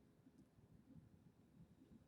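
Near silence: faint room tone with soft, irregular low bumps.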